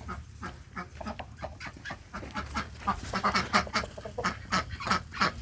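A flock of waterfowl calling: many short calls in quick succession, growing louder and denser about three seconds in.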